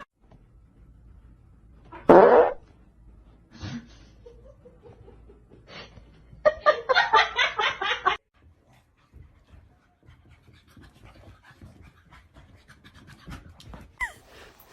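A dog vocalizing: one loud short bark or yelp about two seconds in, a fainter one near four seconds, then a quick pulsing run of sounds for about a second and a half near the middle.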